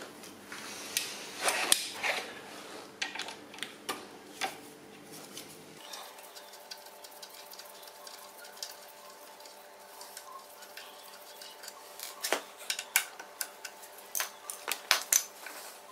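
Metal hand tools clicking and clinking against metal fittings in scattered bursts as 12 mm bolts are undone. It is busier in the first few seconds, mostly quiet through the middle, then a quick run of sharp clicks near the end.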